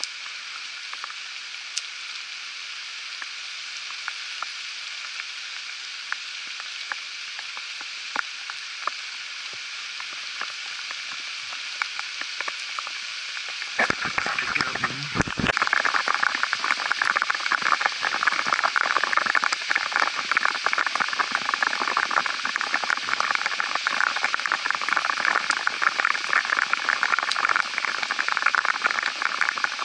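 Rain falling on a creek and the leaves around it, a steady hiss with scattered drops ticking. About halfway through, after a few handling knocks, it turns suddenly louder and denser as raindrops patter directly on the camera.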